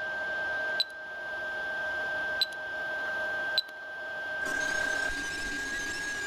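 Anycubic i3 Mega 3D printer: a steady fan hum with a high whine, broken by three short touchscreen beeps as menu buttons are pressed to start a print. About four and a half seconds in, the sound turns to a busier, hissier whir of the printer at work.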